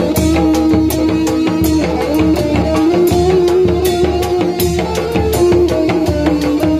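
Sundanese reak procession music: a fast, steady beat of hand drums, with a held, wavering melody line over it.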